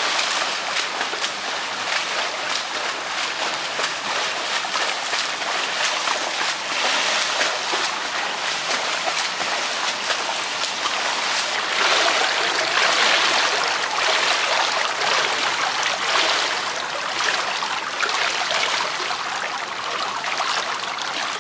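Pool water splashing and churning as a swimmer strokes through it, a continuous rushing splash that grows a little louder midway.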